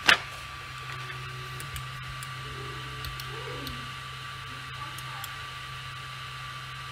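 Creality Ender 3 V2 3D printer auto-homing: a sharp click right at the start, then faint stepper-motor tones from the axes moving to their endstops about three seconds in, over the printer's steady fan hum.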